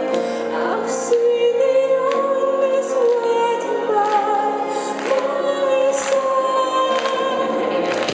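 Symphonic metal band playing live over a concert PA, a woman singing long held notes with vibrato over guitars and drums.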